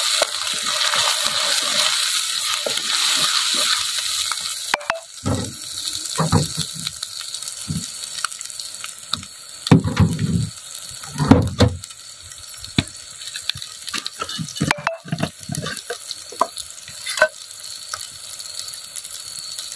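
Onion-tomato masala sizzling as it fries in a clay pot, stirred with a wooden spoon. The sizzle is loud for the first few seconds, then drops to a quieter hiss. Scattered scrapes and a few dull knocks sound through the rest.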